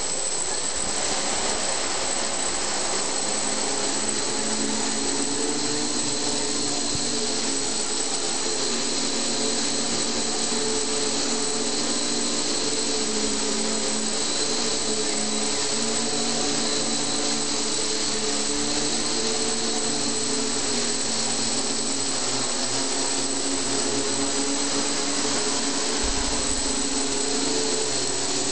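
X8 coaxial multirotor (eight motors on a 450-size quad frame) hovering: its electric motors and propellers make a steady buzzing whine with a hiss over it, the pitch wavering slightly as the motors change speed to hold it in the air.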